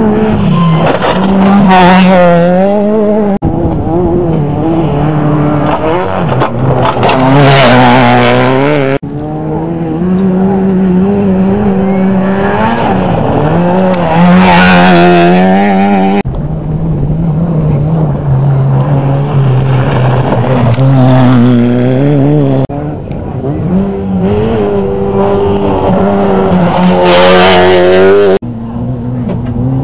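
Rally cars passing one after another on a gravel stage, their engines revving high and rising and falling in pitch as each goes by. The sound cuts suddenly from one car to the next every five or six seconds.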